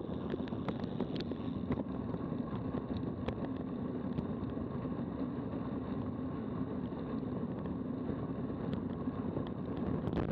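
Steady wind rush on the microphone and tyre noise on asphalt from a bicycle ridden at about 27 km/h, with scattered faint clicks.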